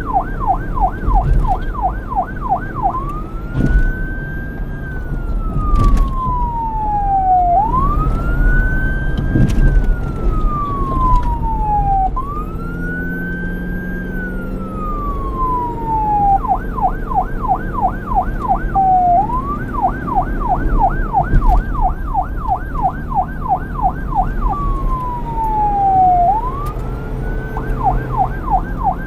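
Police car electronic siren switching between a fast yelp, about three sweeps a second, and a slow wail that rises and falls over about four seconds. The wail runs three times near the start and again briefly near the end. A low rumble sits underneath.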